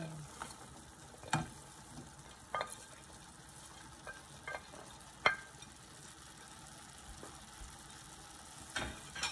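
Sliced celery and cucumber tipped from a plate into a frying pan of sautéing lobster: a low, steady sizzle with a handful of short, sharp knocks and clatters as the vegetables drop in and the plate touches the pan.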